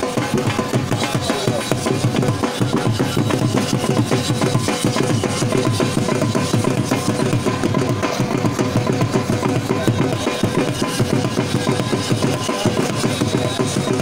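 Fast, continuous drumming with a steady beat.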